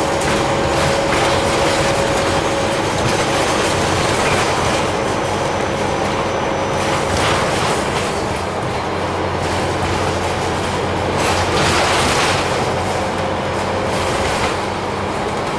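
Scania OmniCity single-deck bus under way, heard from inside the saloon: steady engine and road noise with a steady whine running through it and rattling from the body and fittings. The low engine drone grows heavier for a few seconds past the middle.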